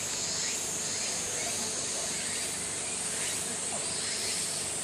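Cicadas droning in a steady, high-pitched hissing chorus, with faint voices underneath.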